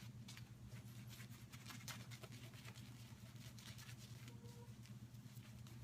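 Faint, scratchy strokes of a Merkur Futur safety razor scraping through lathered stubble, over a steady low hum.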